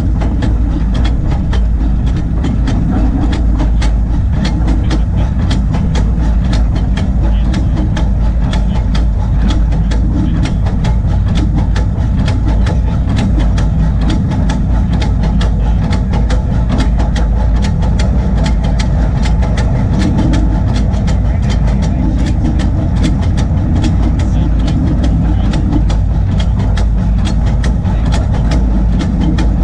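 Crown 4-4-0 coal-fired 24-inch-gauge steam locomotive running along the track, heard from its cab: a steady low rumble with rapid, irregular clicking.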